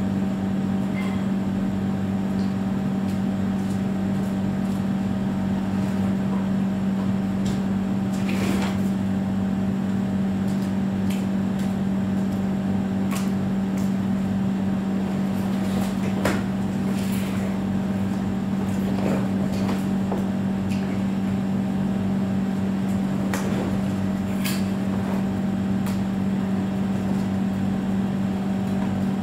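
A steady machine hum with a constant low tone that does not change. Short clicks and rustles come through it a few times.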